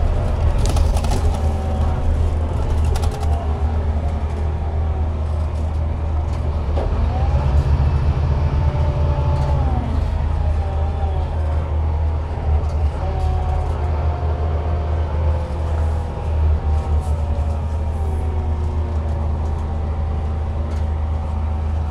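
Scania K360IB bus with a DC13 diesel engine under way: a steady low engine drone with several whining drivetrain tones above it that slide down and up in pitch as the bus's speed changes.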